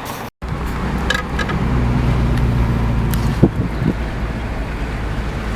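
Car running with steady engine and road noise heard from inside the cabin. There is a single short knock about three and a half seconds in.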